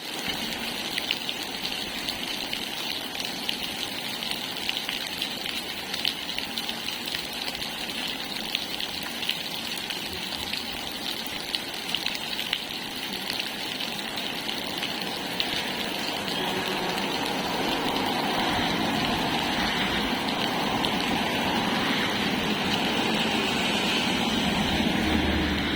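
Steady rain, with many small ticks of individual drops, growing louder and heavier about two-thirds of the way through.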